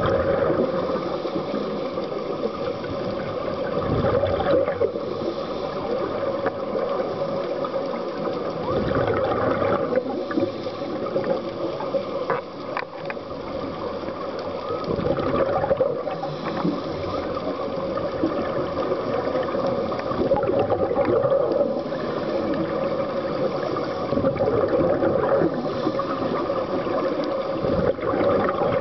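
Muffled underwater noise heard through a dive camera's housing, with the gurgle of a scuba diver's exhaled bubbles swelling every five or six seconds.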